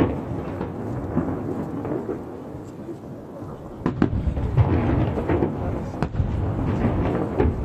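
Aerial fireworks shells bursting, with sharp bangs near the start and around four and six seconds in, and a continuous rolling rumble between them.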